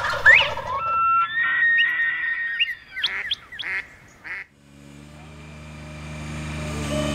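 Birds calling, with held whistles and quick rising calls, for about four seconds. Then a motor's steady hum fades in and grows louder toward the end.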